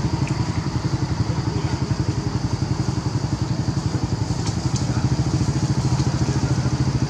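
A motorcycle engine idling steadily with a fast, even pulse.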